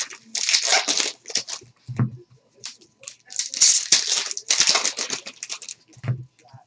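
Trading-card pack wrappers being torn open and crinkled by hand, in two longer spells of tearing and rustling with brief pauses between.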